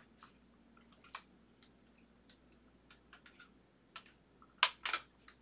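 Scattered light clicks and taps of hard plastic card cases being handled and set down, with a few louder clacks near the end.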